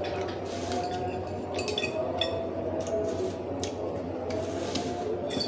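Close-up eating sounds: wet chewing, with a few sharp clinks of a metal fork and spoon against a ceramic bowl about two seconds in and again between four and five seconds in, as the bowls are shifted on the table.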